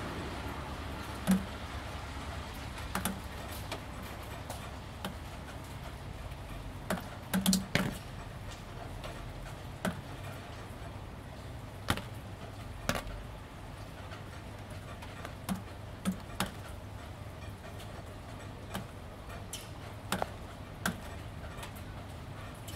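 Gentle rain: a soft steady hiss with water drops landing on a wet ribbed panel, each one a short sharp tick, about one a second at irregular spacing and sometimes two or three close together.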